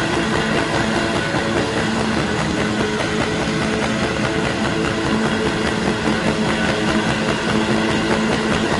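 Live rock band playing loud, dense electric guitar music, with held notes droning steadily.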